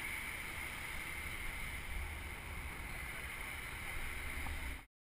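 Wind rumbling on the microphone of a bike-mounted camera while riding, over steady road noise with a thin high whine. It cuts off abruptly near the end.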